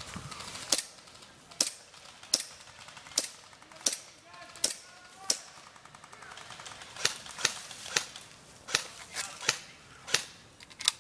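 Airsoft guns firing single shots: about fifteen sharp pops at irregular intervals, some in quick pairs.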